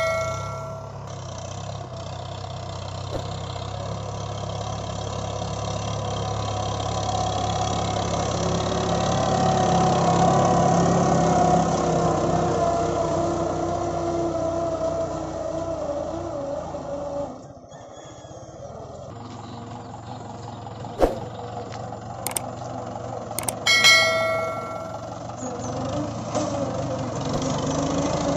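Mahindra 575 DI tractor's four-cylinder diesel engine running steadily under load while it pulls a tine cultivator through tilled soil. It grows louder, then fades. It drops away sharply about two-thirds of the way through and comes back. A short bell chime rings out near the end.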